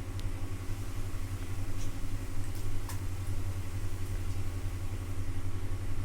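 Steady low machine hum, even throughout, with a few faint short high-pitched sounds about two to three seconds in.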